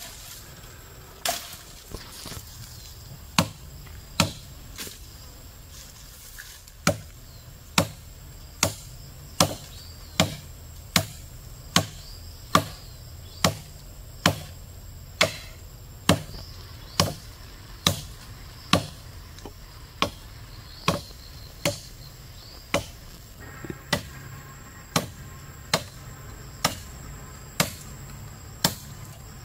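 Chopping into wood: sharp single blows of a cutting tool, a few irregular strikes at first, then a steady rhythm of a little more than one blow a second.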